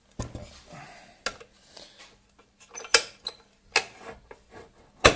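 Hard plastic knocks and clicks as the Kenwood Chef KMC510 mixer's white plastic cover is handled and pushed into place on its body: a handful of sharp knocks a second or so apart, with light scraping between.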